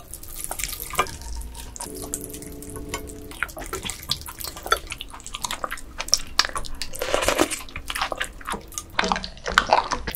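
Close-miked wet sounds of live ice gobies: dripping and splattering as they are poured from a wire sieve onto a plate, then wet slurping and chewing as they are eaten, with many small crackling clicks.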